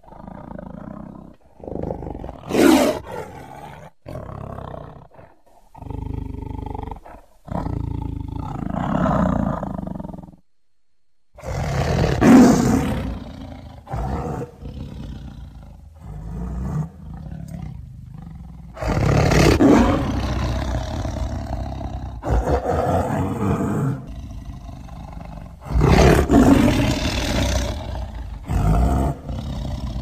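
Tiger roaring and growling: four loud roars spread through the stretch, with rough, low growls between them.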